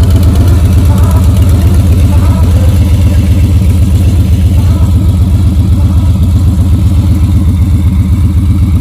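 2022 Harley-Davidson Low Rider S's Milwaukee-Eight 117 V-twin idling through an aftermarket TBR exhaust. It makes a loud, deep, even pulsing note that holds steady, with no revving.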